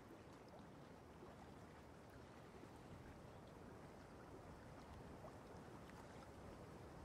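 Near silence: a steady low room hiss, with a few faint scattered ticks.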